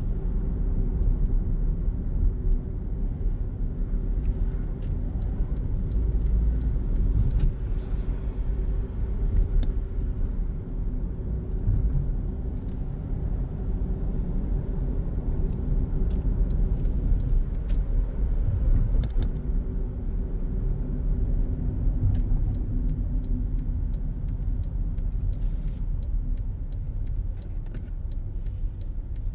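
Car driving, heard from inside the cabin: a steady low road and engine rumble with a faint hum, and occasional light clicks or rattles.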